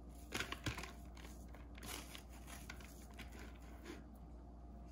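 A few light taps and soft rustling about half a second in as grated carrot is tipped from a metal bowl into a plastic tub, then only faint handling.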